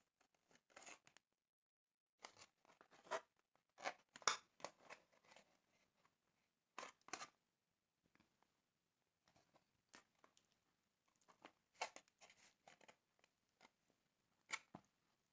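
Hands pulling apart grilled chicken in an aluminium foil takeaway tray: irregular crackling and tearing sounds in short clusters, with one sharp crackle near the end.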